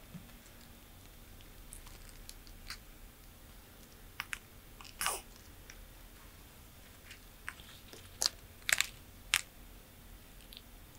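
Tortoise biting and chewing crunchy food, a series of separate sharp crunches with pauses between, the loudest about halfway through and a quick cluster of three near the end.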